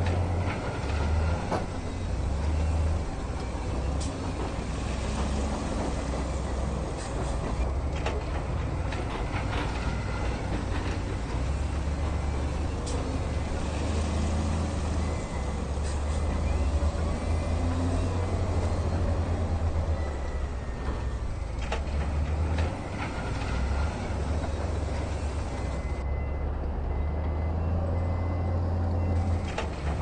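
Heavy diesel machinery working: dump truck and crawler bulldozer engines rumbling steadily, swelling and easing under load, with a few sharp knocks along the way.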